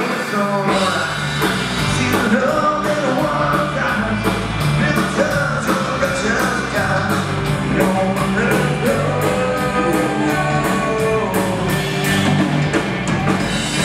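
Live country-rock band playing loud amplified music: electric guitars, bass and a drum kit, with cymbal strokes keeping a steady, even beat.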